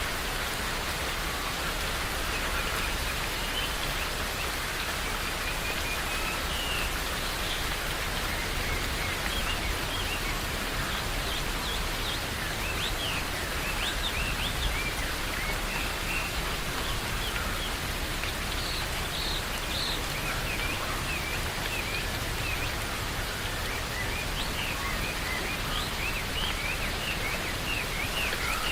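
Steady rain falling in a forest, with many short high bird chirps scattered over it, thickest in the second half.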